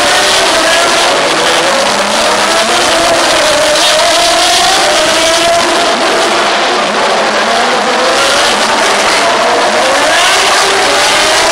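A pack of Formula Renault 3.5 single-seaters with 3.5-litre V6 engines accelerating hard away from the start. Several engine notes overlap, each climbing in pitch, dropping at a gear change and climbing again, over a steady hiss.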